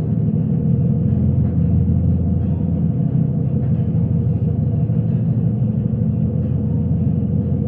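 Steady low rumble of a running vehicle, with a faint steady hum and no change in pitch or level.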